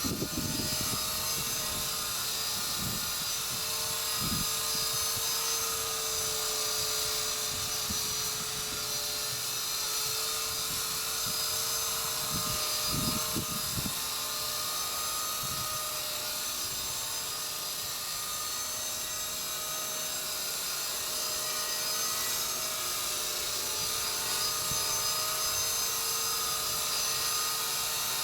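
Walkera V120D02S micro RC helicopter hovering: a steady, high-pitched motor and rotor whine. A few brief gusts of wind buffet the microphone.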